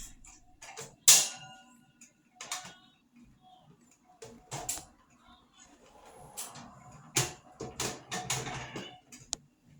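Parts of a vintage Tatung 12-inch table fan clicking and knocking as the fan is put back together, with irregular sharp clicks and handling noise, busiest near the end.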